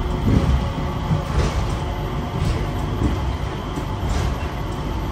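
Airport people-mover train car running, heard from inside the cabin: a steady low rumble with a few light knocks.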